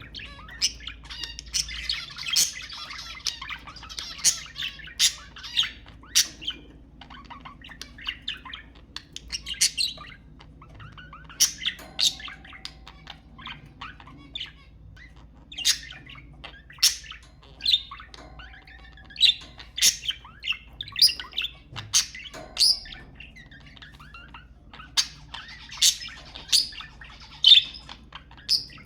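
Budgerigars chirping and squawking: a continuous string of short, sharp calls with denser warbling chatter in the first few seconds.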